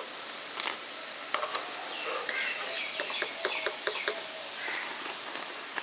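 Small birds chirping: a scatter of short sharp chirps and several curved whistled notes, most of them in the middle stretch, over a steady background hiss.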